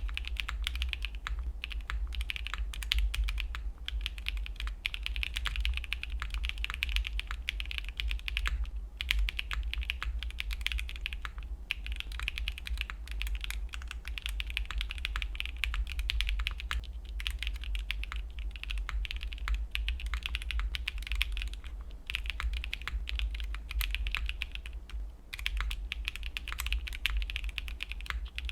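Fast, continuous typing on a QK60 aluminium-top 60% mechanical keyboard with stock, factory-lubed WS Red linear switches on an FR4 plate, built without foam and with taped flex cuts, and DMK keycaps; rapid keystroke clicks with a few brief pauses.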